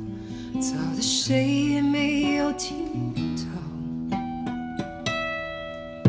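Acoustic guitar accompanying a woman singing a slow Mandarin ballad, her held notes wavering with vibrato in the first half. In the second half the guitar carries on with plucked notes and a ringing chord.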